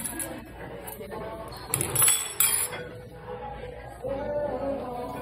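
Metal cutlery clinking against ceramic dishes, with a quick cluster of sharp clinks about two seconds in.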